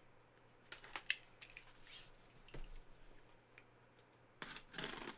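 Handling of a cardboard trading-card box being opened: a few sharp clicks and taps about a second in, then a short burst of cardboard rustling and scraping near the end.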